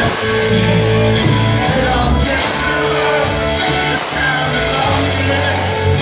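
Live amplified band music: acoustic and electric guitars, keyboard, bass and drums playing a mid-tempo song, heard from among the audience in a concert hall.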